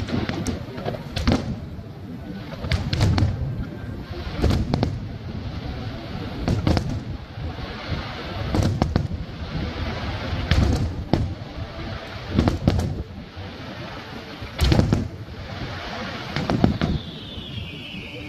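Aerial firework shells bursting in quick succession: irregular sharp booms with crackling between them. A falling high tone starts near the end.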